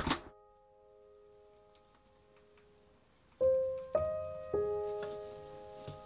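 Background piano music: a held chord fading away, then three single piano notes about half a second apart starting around three and a half seconds in. Right at the start, a sharp click of a wooden front door latching shut.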